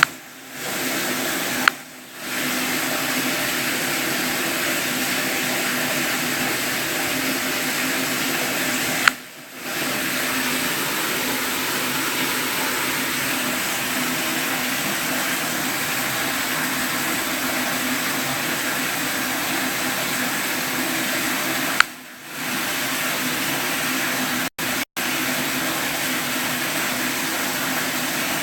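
Steady rushing noise of running water. Three sharp clicks, about two seconds in, about nine seconds in and about twenty-two seconds in, are each followed by a brief dip in the sound, and near the end it cuts out twice for an instant.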